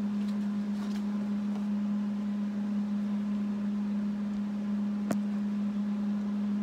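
Steady machine hum at an even pitch, with a faint sharp click about five seconds in.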